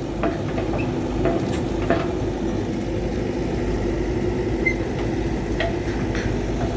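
Heavy diesel construction machinery running steadily, with a low rumble and a few scattered clicks and clanks.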